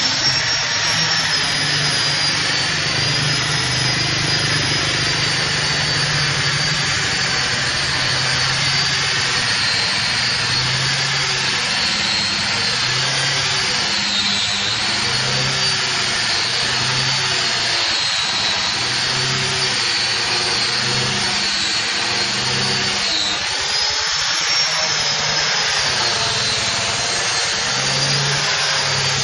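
Electric angle grinder fitted with a sanding disc, running steadily while sanding a wooden door panel. It makes a continuous high whine over a rough rasping hiss, and the whine sags briefly in pitch a couple of times as the disc bears on the wood.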